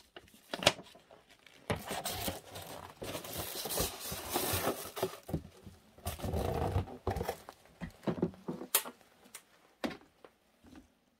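Plastic packaging crinkling and cardboard box rustling as a speaker is handled and lifted out of its box. A few sharp knocks come near the start and near the end.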